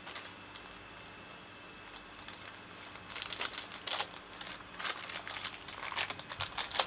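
A small clear plastic bag crinkling as hands open it and pull out the wire leads: short, irregular crackles starting about three seconds in.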